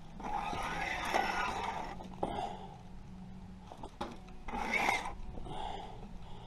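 Scraping and rubbing against concrete blocks during blocklaying. There is a long stretch of about two seconds at the start and a shorter one about four and a half seconds in, with a few light knocks between.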